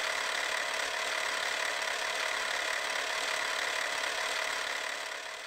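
Film projector sound effect: a steady mechanical whirring clatter that fades out near the end.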